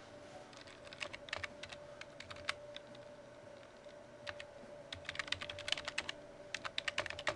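Typing on a computer keyboard: short runs of keystrokes, thickest in the second half, over a faint steady hum.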